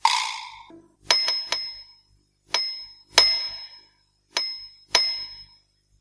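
A small bell ringing in three pairs of quick, high dings, each dying away fast, after a short rushing noise at the start.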